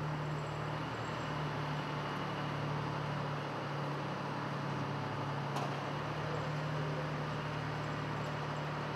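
Steady low machinery drone with a hiss over it from ground equipment in an aircraft hangar while a jet is being moved. A faint click comes about five and a half seconds in.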